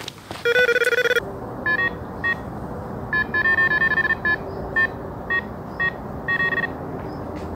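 Electronic carp bite alarms beeping as line is pulled through them, the signal of a fish taking line on a run. A fast series of beeps stops about a second in, and an alarm with a higher tone then sounds in short, irregular bursts, with one longer run of quick beeps near the middle.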